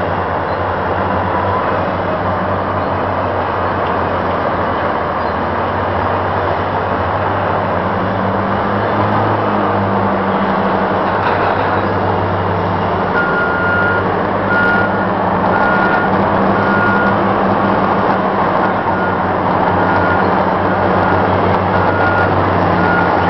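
Heavy diesel engines of wheel tractor scrapers running steadily under load, a loud continuous drone. From about halfway through, a backup alarm beeps about once a second as a machine reverses.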